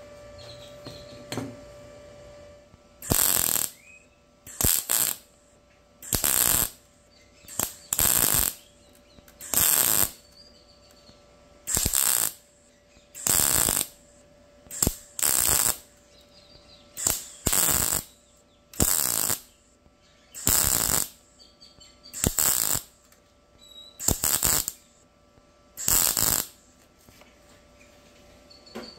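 Arccaptain MIG200 welder's MIG torch striking a string of short arc bursts, about sixteen crackling tack welds a second or two apart. Each burst is a brief spot or tack weld on steel plate, cut off by releasing the trigger.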